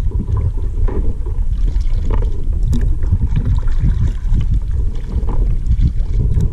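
Double-bladed kayak paddle strokes, the blades dipping and splashing in the water on alternate sides, over a loud low rumble.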